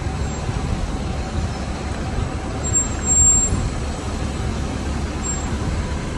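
Steady low rumbling background noise on an open airport apron, with a brief louder swell about three seconds in.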